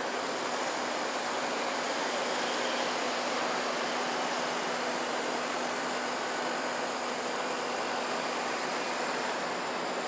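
Steady hiss of rain falling on grass and water, with no distinct events.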